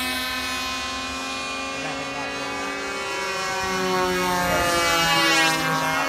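Several glow-engine radio-control model airplanes buzzing overhead at once, their high engine notes sliding slowly in pitch as they fly past. The sound dips a little midway and grows louder again near the end.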